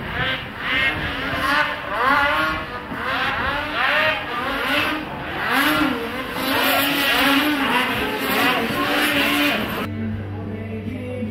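Racing snowmobile engines revving up and down over and over as the sleds go by, the pitch rising and falling with each throttle blip. About ten seconds in the sound cuts to a quieter, steady low engine hum.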